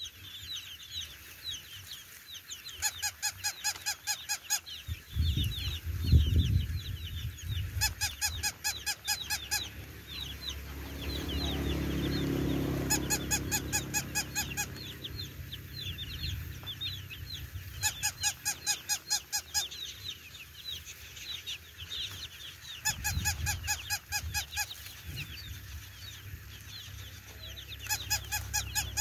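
Young chicks peeping continuously, with bursts of a rapid, pulsed honking call about two seconds long recurring roughly every five seconds. A low rumble comes about six seconds in.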